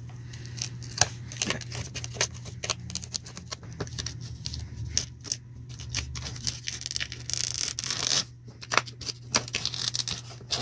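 Plastic tamper-evident packing tape on a cardboard box being poked and slit with a nail clipper's file: a string of sharp clicks and scratches, with longer tearing sounds near the end as the tape gives way.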